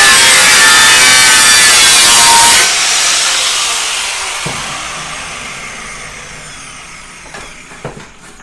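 Angle grinder cutting into a motorcycle frame, a loud rasping grind that stops abruptly about two and a half seconds in. The disc then winds down, its whine falling and fading over several seconds, with a couple of light knocks near the end.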